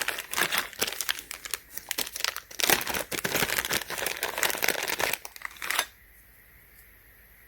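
Plastic packaging crinkling as it is handled and opened, with a fast irregular crackle that stops about six seconds in.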